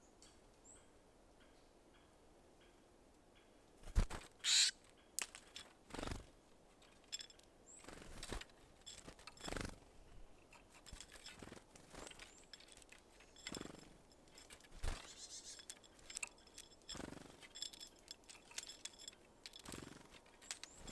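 Small birds at a seed feeder: a string of sharp taps and knocks from landing and pecking, mixed with short high chirps, starting about four seconds in.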